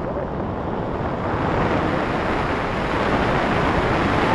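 Wind buffeting a small camera's microphone as two people descend under a tandem parachute canopy: a steady rushing noise, growing a little louder toward the end.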